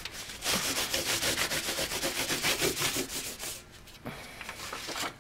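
Fine sandpaper rubbed in quick, even back-and-forth strokes over embossed metal foil, scratching the colour off the raised areas. The strokes die away about three and a half seconds in, followed by a few softer rubs.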